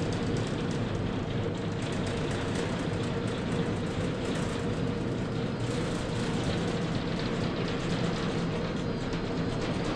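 Snowbird's Peruvian Tunnel conveyor-belt carpet lift running: a steady mechanical rumble with a constant mid-pitched hum.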